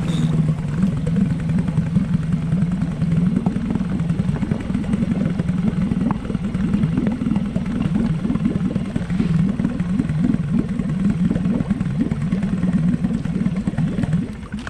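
Small boat's outboard motor running steadily at trolling speed, a constant low engine hum that cuts off near the end.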